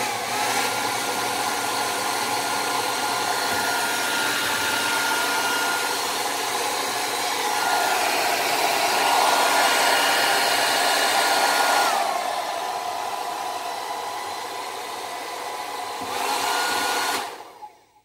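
Unix UN-A1610 ion hair dryer running: a steady rush of air with a thin fan whine. It is switched between settings, getting louder about eight seconds in, then quieter with the whine dropping in pitch at about twelve seconds, then back up near sixteen seconds before it is switched off and winds down near the end.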